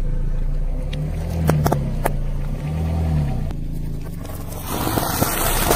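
A car's engine running slowly, with the pitch rising and falling as it creeps forward, and its tyre rolling over asphalt, with a few sharp snaps. Near the end comes a loud crunching, rustling noise as the tyre rolls onto a plastic bag of puffed rice candy.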